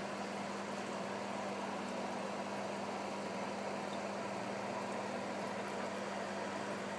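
Aquarium pump running with a steady hum and an even hiss.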